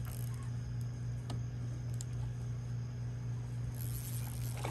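Spinning reel being cranked to bring in a hooked fish, with a few short clicks over a steady low hum, and a brief hiss near the end.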